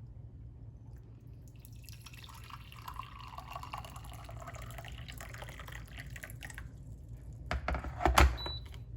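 Large electric kettle heating water, a hissing, bubbling sound building up as the water nears the boil. Near the end come a few sharp clicks and knocks, then a short high beep.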